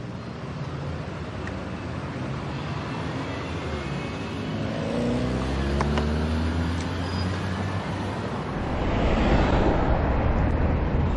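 Street traffic heard from a moving bicycle, with a steady low rumble of wind on the chest-mounted camera's microphone. A motor vehicle passes about halfway through, its engine note sliding in pitch, and the traffic noise grows louder near the end.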